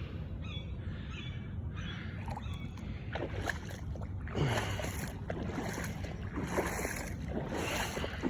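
Footsteps sloshing through shallow standing water on a flooded trail. The steps come roughly once a second from about halfway in, over a steady low rumble of wind on the microphone.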